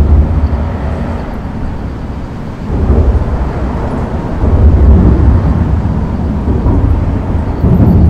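Traffic crossing a busy concrete road bridge, heard from underneath: a steady deep rumble of tyres and engines that swells as vehicles pass overhead, loudest at the start, about three seconds in, around four and a half seconds, and again near the end.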